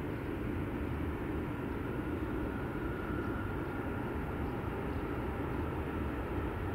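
Boeing 767-300ER on final approach, its twin jet engines a steady, even rumble, with a faint whine appearing briefly around the middle.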